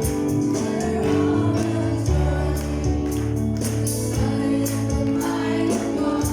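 Congregational gospel worship song: voices singing together over held keyboard chords, with regular percussion strikes such as tambourine or cymbal.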